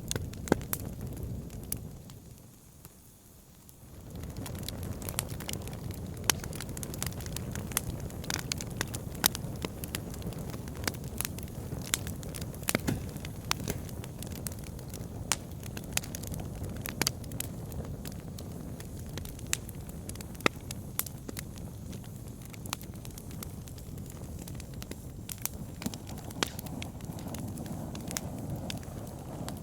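Wood fire burning in a fireplace: a steady low rush of flames with frequent sharp crackles and pops from the burning wood. The sound fades down briefly about two seconds in and comes back about two seconds later.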